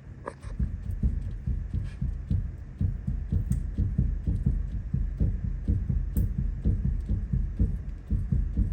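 A machine running with a low, even throb of about four pulses a second, starting just after a sharp click.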